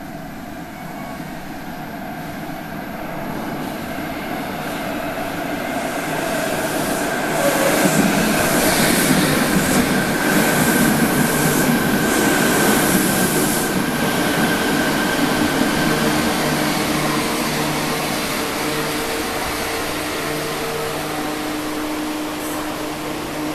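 Fukuoka City Subway Nanakuma Line 3000 series linear-motor train pulling into an underground station: its running noise grows over several seconds and is loudest as the cars run along the platform, with a steady high whine through the middle. Low motor tones shift as it brakes, and the train comes to a stop near the end, leaving a steady low hum.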